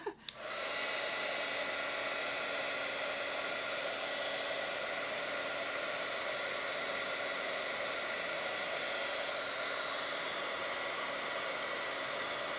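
Craft embossing heat tool switched on just after the start and running steadily: a constant rush of blown air with a thin, high whine over it, heating a paper seashell cutout.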